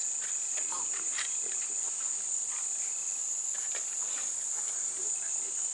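Steady, high-pitched chorus of insects trilling, with faint scattered clicks and rustles underneath.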